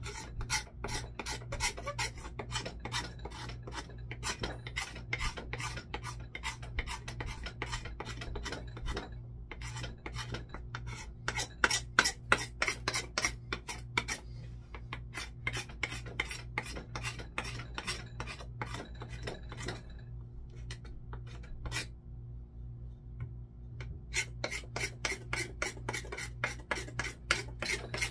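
A knife blade scraping packed dirt, grime and old finish off a wooden Disston handsaw handle, in quick rasping strokes about three a second, with a few short breaks and a quieter stretch past the middle.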